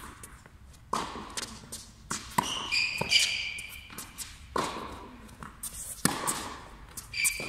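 Tennis rally on an indoor court: racket strikes and ball bounces, about one every second or so, echoing in a large hall, with short high squeaks of shoes on the court surface twice.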